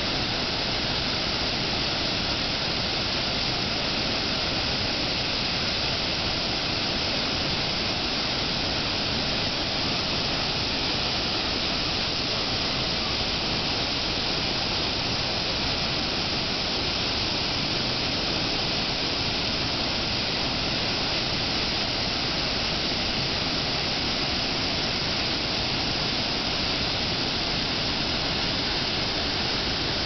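Flowing river water rushing steadily, an unbroken even noise with no change in level.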